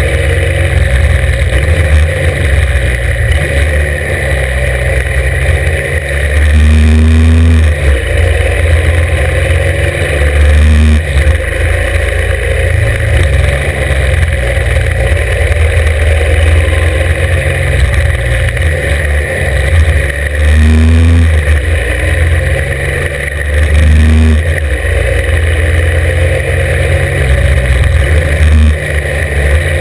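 Norton 750 Commando's air-cooled parallel-twin engine running hard uphill, heard from on the bike, its revs rising and falling several times as the rider rolls on and off the throttle.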